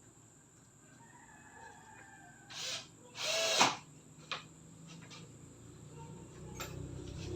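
A power drill run in two short bursts, a brief one about two and a half seconds in and a longer, louder one a moment later that winds down in pitch.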